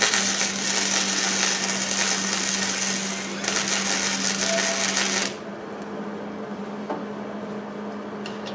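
Hobart Handler 140 wire-feed welder arc crackling and hissing while a weld bead is laid to repair broken welds on a Kubota L3901 tractor. It runs about five seconds, with a brief dip about three seconds in, then stops suddenly, over a steady low hum.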